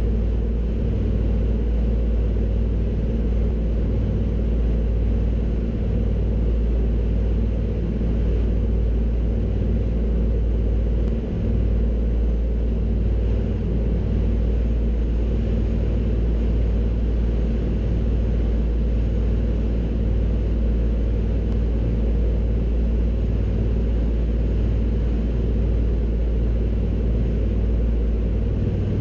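Avro Anson's twin Armstrong Siddeley Cheetah radial piston engines running in flight: a steady, even drone with no change in pitch.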